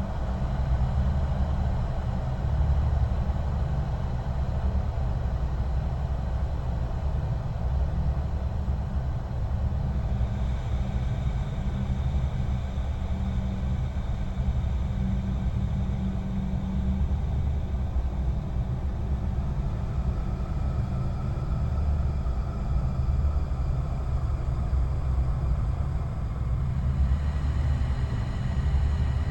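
Horror ambience soundscape: a steady low rumbling drone, with faint thin high tones joining about ten seconds in and more near the end.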